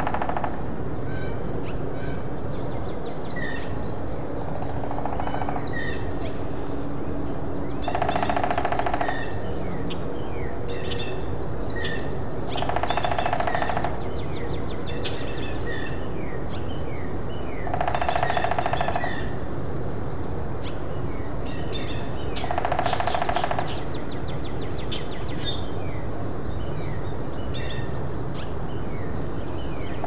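Hairy woodpecker drumming on a dead tree trunk: a rapid, even roll of bill strikes about a second long, repeated roughly every four to five seconds, six times, one of them fainter. Small birds chirp between the rolls.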